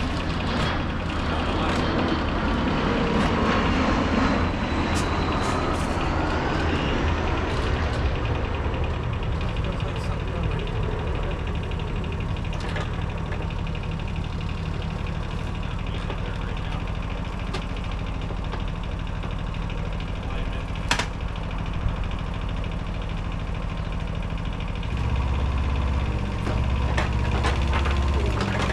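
Yanmar excavator's diesel engine running steadily, growing louder about 25 seconds in as it is throttled up. There is a single sharp click a little past 20 seconds.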